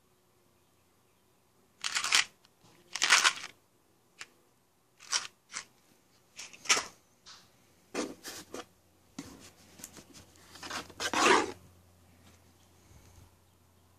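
Items being handled in a cardboard box: a string of short rustles and scrapes of cardboard and packaging, with the longest rustle near the end.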